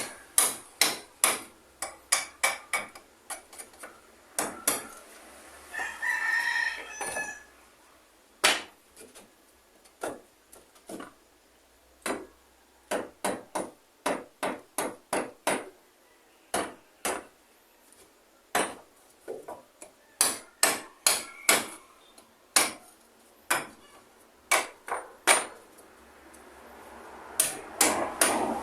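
Hammer striking nails in quick runs of blows, with pauses between runs. A rooster crows once, about six seconds in.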